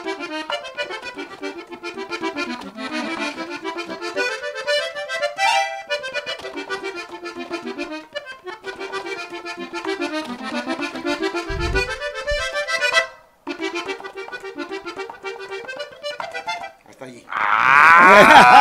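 Hohner button accordion playing a lively melody over bass accompaniment. The phrases carry rising runs and break off briefly twice. Near the end a much louder shout with a wavering pitch cuts in over the playing.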